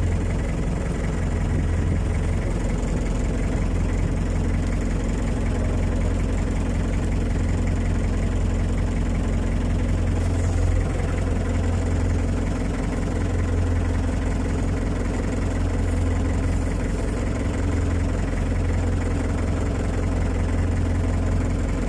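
Fishing boat's inboard engine idling steadily, a constant low hum with no change in speed.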